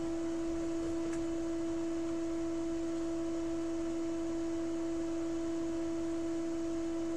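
A steady electronic whine: a single pure tone with a fainter tone an octave above it, unchanging throughout.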